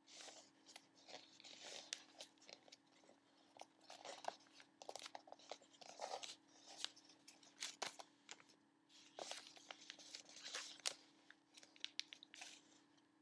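A sheet of origami paper being folded and creased by hand: faint, irregular rustling and crinkling with sharp little clicks as the folds are pressed flat.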